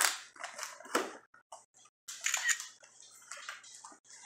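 Plastic packaging rustling and crinkling in irregular bursts as camera accessories are handled, with a few light clicks.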